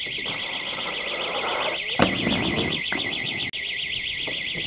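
An electronic alarm warbles continuously with a fast, even up-and-down sweep. Beneath it, skateboard wheels roll on concrete, with one sharp clack of the board about two seconds in.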